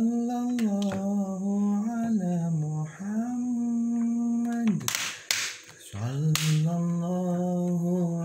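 A single voice chanting a slow shalawat in long held, gliding notes. A few sharp clicks fall in a short break in the voice about halfway through.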